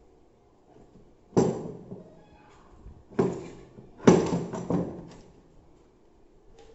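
Handling clatter from the DeWalt D25133K rotary hammer drill and its parts: a sharp clunk about a second and a half in, another about three seconds in, then a short run of rattling knocks around four to five seconds.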